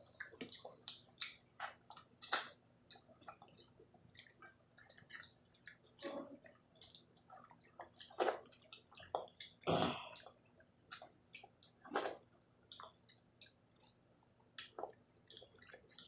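Close-miked chewing and wet mouth sounds of someone eating a rice-and-curry meal: irregular soft smacks, clicks and squishes, with a louder wet one about ten seconds in.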